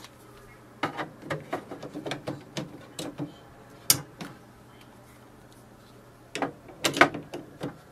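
Plastic ink cartridges being pushed into the printhead carriage of an HP OfficeJet Pro 8028 and snapping into their slots: a run of small clicks and rattles, one sharp click about four seconds in, then a louder cluster of clicks near the end as the next cartridge locks in place.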